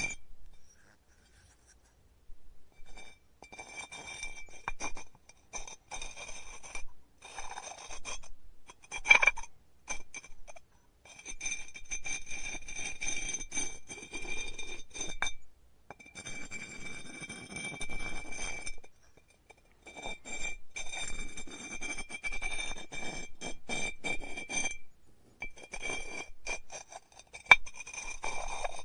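Pottery wheel work: a tool scrapes and rasps against clay in stretches of a few seconds, over a steady high whine, with a few sharp clinks. The sound drops out briefly twice.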